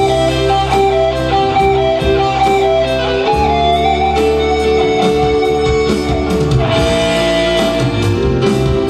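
Instrumental break of a live song played on an electronic keyboard: a plucked, guitar-like melody line over a steady held bass, with no singing.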